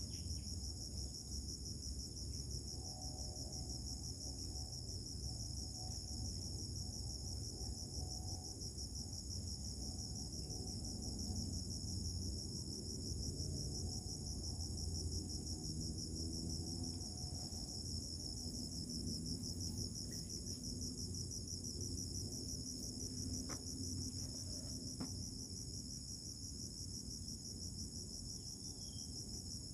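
Insects trilling in a continuous high-pitched, finely pulsing chorus over a low background rumble, with a couple of faint clicks about three-quarters of the way through.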